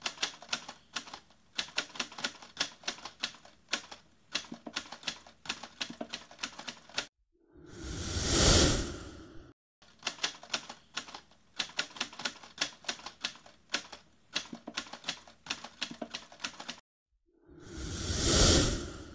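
Typewriter-typing sound effect for an animated title: two long runs of rapid, irregular key clicks. Each run is followed by a swelling rush of noise that builds to the loudest point and fades out, about eight seconds in and again near the end.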